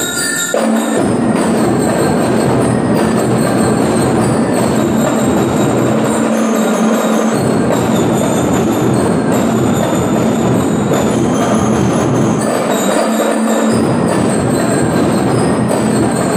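Drum and lyre corps playing loudly: marching drums with bell lyres ringing out the tune.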